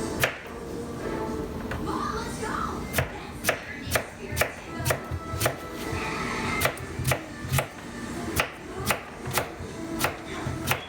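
Kitchen knife chopping food on a cutting board, a run of sharp strikes about two a second starting about three seconds in, with one earlier strike near the start.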